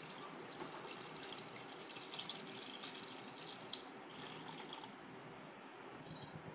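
Water poured in a steady stream from a container into a pressure-cooker pot of chicken masala gravy, splashing into the liquid. The pour stops near the end.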